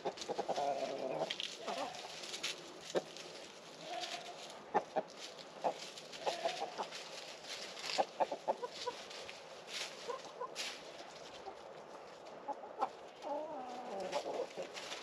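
A small flock of chickens in a pen clucking, with short calls scattered throughout and a longer call that falls in pitch near the end.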